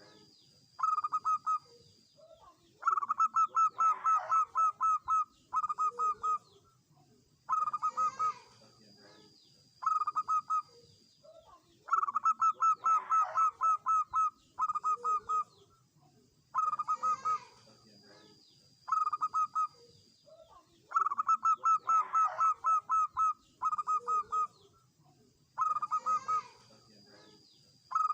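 Zebra dove (perkutut) singing: short bursts of rapid staccato coos alternate with longer rattling runs, repeating in a steady cycle every few seconds.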